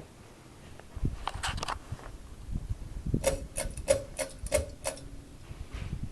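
A series of sharp mechanical clicks: a small cluster about a second and a half in, then six in quick succession, about three a second.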